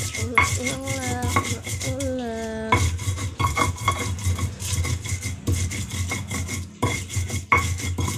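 Stone pestle grinding bird's-eye chillies, garlic and salt on a flat stone mortar (ulekan on cobek) for sambal: a fast run of scraping, knocking strokes, with a brief pause near seven seconds. In the first three seconds a drawn-out pitched sound comes twice, the second falling in pitch at its end.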